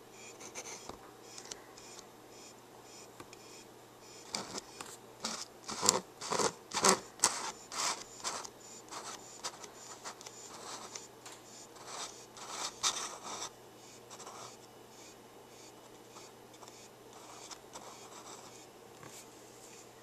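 Clear plastic insect container handled by hand, giving a run of scratches and sharp plastic clicks that are loudest about six to seven seconds in and die away by about fourteen seconds. Faint, evenly spaced ticks sit underneath.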